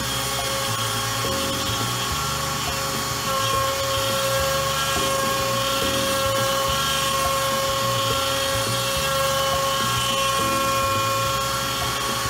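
Makita compact router spinning at a steady high-pitched whine as the CNC's end mill cuts into pine, with a lower hum from the machine's stepper motors that shifts in pitch every second or so as the carriage moves.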